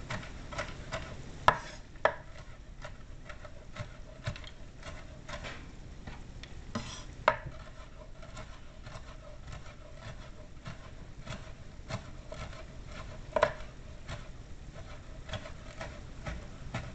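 Knife chopping walnuts: a run of quick, irregular taps of the blade, with a few louder knocks now and then.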